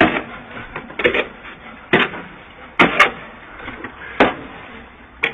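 A run of sharp knocks and scrapes, about one a second, from a worker handling building material by hand.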